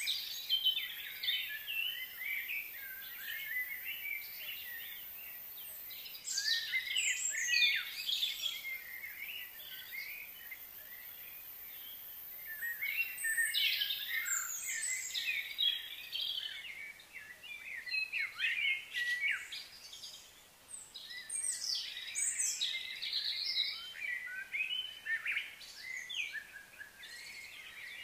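Several wild birds chirping and twittering in quick clustered bursts of high, rapidly gliding notes that come and go.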